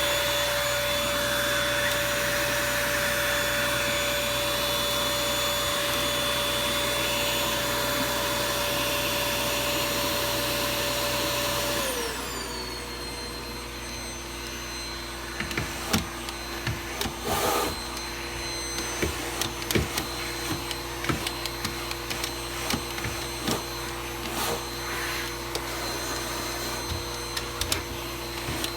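Toshiba VC-PB9 vacuum cleaner running with a steady whine. About twelve seconds in, its pitch glides down and it runs on quieter at a lower pitch, with scattered clicks and knocks over it.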